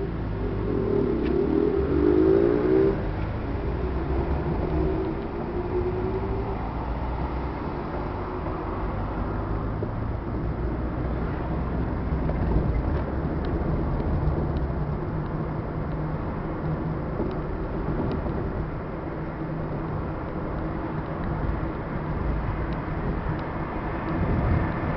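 Car engine and road noise heard from inside a moving car's cabin, the engine's pitch rising as it accelerates in the first few seconds, then a steady drive.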